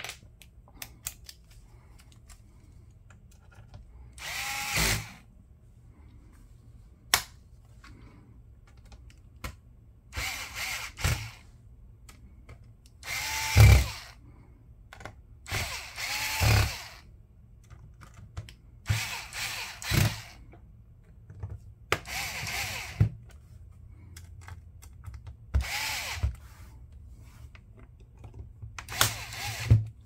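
Metabo HPT cordless electric screwdriver running in about ten short bursts, each under a second or so, with a motor whine that dips in pitch as it loads. It is driving the captive Phillips screws of a laptop's bottom cover back in, with small clicks between the runs.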